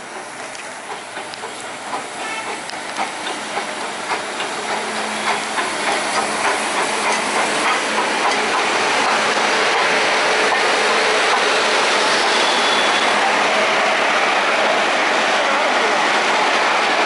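Nilgiri Mountain Railway X-class steam locomotive drawing in alongside the platform. A regular beat about twice a second grows louder over the first half, then a steady loud hiss of steam takes over as the engine passes close by.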